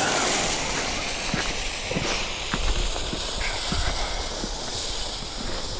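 Lit fuse of a Pyroland Single Bells Brokat single-shot bomb tube burning with a steady hiss, with scattered light clicks, as it burns down toward the lift charge.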